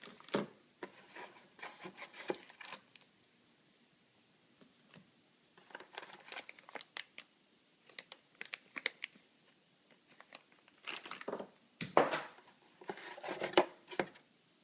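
Packaging being handled and unwrapped, crinkling and tearing in three spells with short pauses between, with a few sharper cracks near the end.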